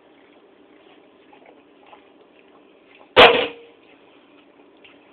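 A single sharp bang about three seconds in, with a short ringing tone after it, over faint scattered clicks.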